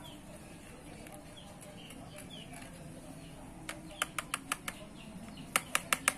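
Two quick runs of sharp light clicks, a thin stick tapping against a plastic tub as it works seeds into potting mix. Faint bird chirps in the background.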